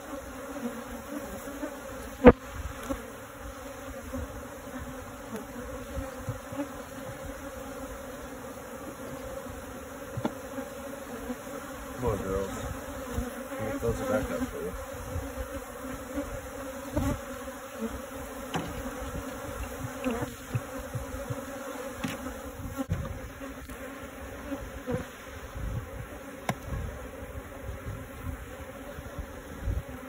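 A colony of honeybees buzzing in a steady, dense hum around an opened barrel top-bar hive, with scattered wooden knocks and clicks as the top bars and comb are handled. One sharp knock about two seconds in is the loudest sound.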